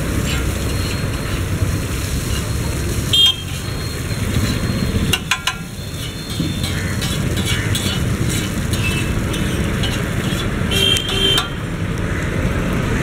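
Street traffic running steadily, with vehicle horns giving a short toot about three seconds in and two more near the end. A few sharp metallic clinks come about five seconds in.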